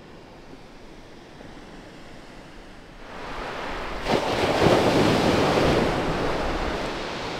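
Sea waves breaking and washing over a shingle beach, with wind on the microphone. It starts faint and swells about three seconds in, with a sudden surge about four seconds in as a wave crashes, then eases off slightly.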